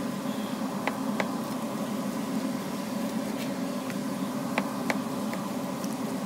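Steady machine hum with a hiss, with a few faint clicks in pairs as a butcher's knife meets the cutting board while steaks are sliced from a beef top round.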